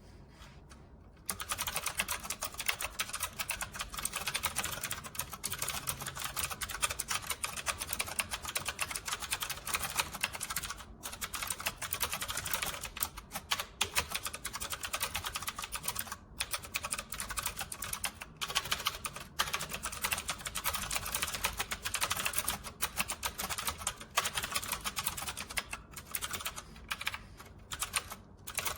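Fast typing on a typewriter-style mechanical keyboard: a dense stream of clicking keystrokes that starts about a second in, broken by a few brief pauses.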